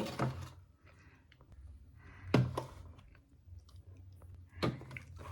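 Items knocking and clattering as they are handled and set down during fridge cleaning: three louder knocks about two seconds apart with small clicks between, over a low steady hum.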